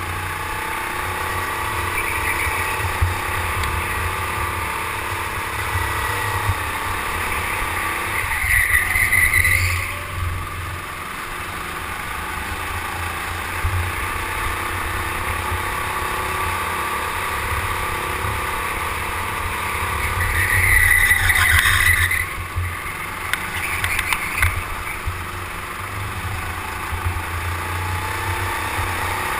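Go-kart running at speed, heard from onboard: a steady motor drone over a low rumble. It grows louder twice, with a high-pitched whine, about a third and two-thirds of the way through.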